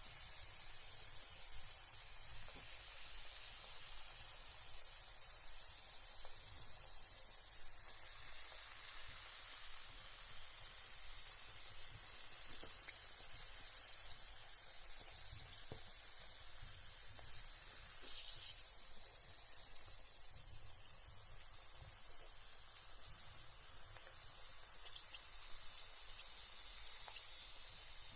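Carbonated bath bomb fizzing in bath water: a steady high hiss of bubbles, with a few faint ticks.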